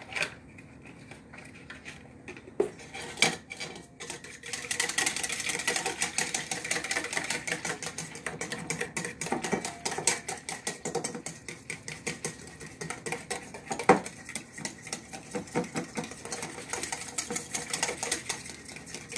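Egg-and-milk custard being whisked briskly in a stainless steel bowl: a utensil clicking rapidly and continuously against the metal, starting a few seconds in after a few separate taps. One sharper knock comes midway.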